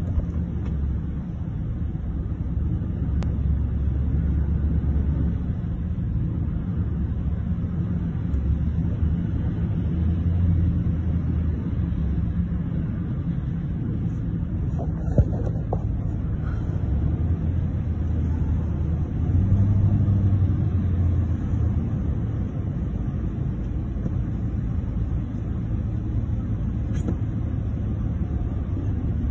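Steady low rumble of a vehicle driving on a flooded road, heard from inside the cab. There is a single click about halfway through.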